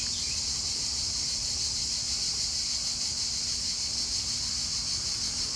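Steady, high-pitched buzzing of summer insects in the garden, an even unbroken drone, with a faint low hum under it.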